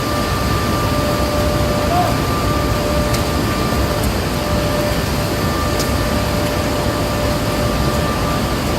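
Steady industrial machinery roar, even and unbroken, with a faint steady whine running through it.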